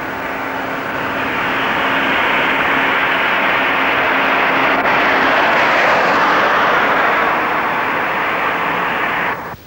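A loud rushing roar like an aircraft passing, swelling over the first two seconds and then holding. A faint steady hum runs under it for the first half, and the roar cuts off abruptly near the end.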